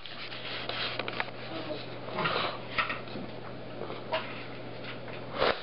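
Plastic wobble-style treat dish knocking and rattling on a tile floor as a cat paws and noses it, with food and a small ball inside. Scattered irregular clicks and knocks, the loudest just before the end, over a steady low hum.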